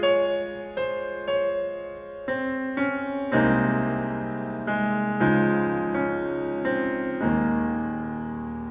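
Grand piano played solo: the slow introduction to a sacred song, chords struck about once a second and left to ring, with deeper bass notes joining a little over a third of the way in.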